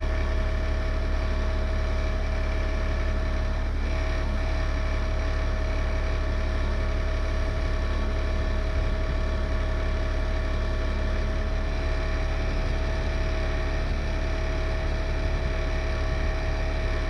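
An engine running steadily, with a low rumble and a constant hum that do not change in pitch.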